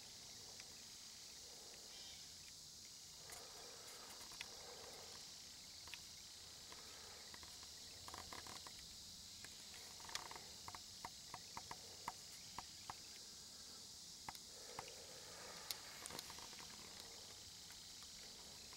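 Near silence in woodland: a faint steady high insect chorus, with scattered light clicks and rustles from about the middle on.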